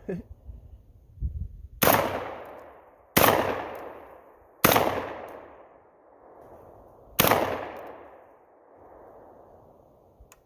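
Four shots from a Panzer Arms AR-12 semi-automatic 12-gauge shotgun, fired at uneven intervals with the last after a longer pause. Each blast rings out and dies away over about a second.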